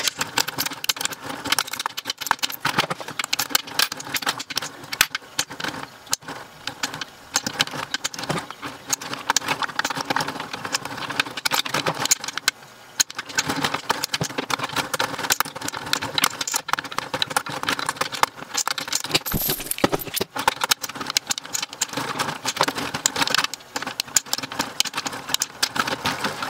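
Royal Sovereign FS-500 electric coin sorter's motor running with a steady hum while coins and metal rattle and click continuously at its jammed penny slot.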